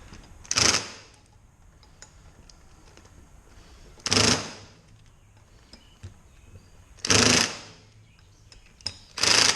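Impact wrench on a low setting driving in a brake rotor's Allen head bolts, in four short bursts a few seconds apart.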